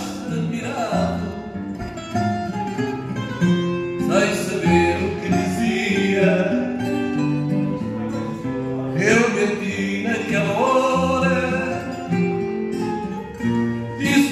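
A man sings fado into a microphone over a plucked acoustic guitar accompaniment.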